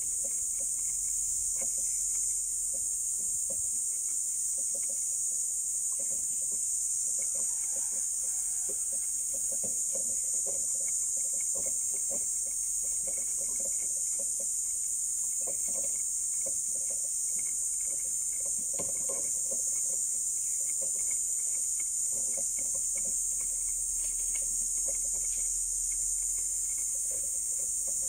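A steady high-pitched hiss runs throughout, with faint scattered clicks and knocks as a phone-holder mount adapter is handled and fitted onto a rifle scope.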